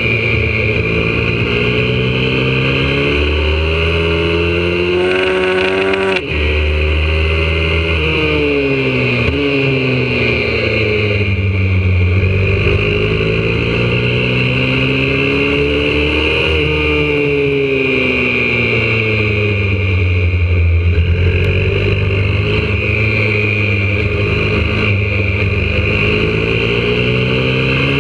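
Single-cylinder four-stroke engine of a YCF 125cc pit bike, heard onboard at track pace: its pitch climbs under throttle and drops at each gear change and on braking, over and over, with a brief dip in sound about six seconds in.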